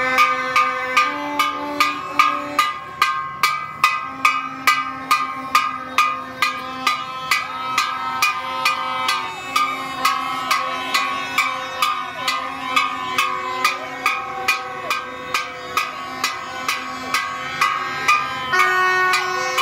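Music with a steady drum beat, about two and a half strokes a second, under a held melody that steps from note to note.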